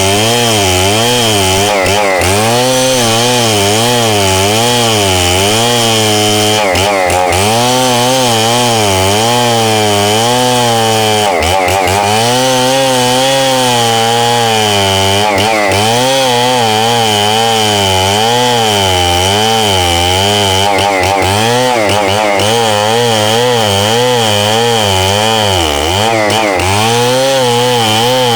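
Stihl 070 two-stroke chainsaw cutting red meranti wood. The engine speed keeps rising and falling as the saw loads and frees in the cut, with a few short dips along the way.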